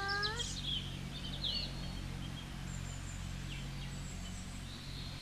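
Rural outdoor ambience: birds chirping during the first couple of seconds over a steady low hum, which cuts off abruptly at the end.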